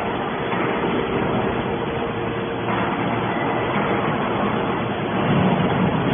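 Hydraulic steel can baler running: a steady machine noise with a constant low hum.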